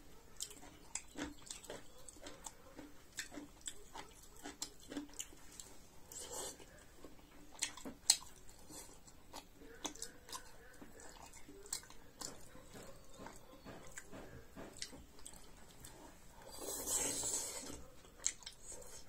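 A person chewing and eating, with soft mouth clicks and sharp clicks of a metal fork and spoon on a large cast-iron pot, the loudest about eight seconds in. A short rush of noise comes near the end.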